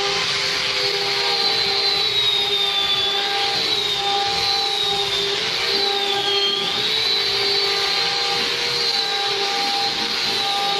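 Large sawmill saw running: a steady machine noise with a high whine that wavers slowly up and down in pitch.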